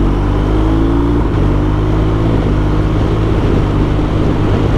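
BMW R1250RT boxer-twin engine accelerating under throttle, its revs climbing, dropping once about a second in on a clutchless quickshifter upshift, then climbing again.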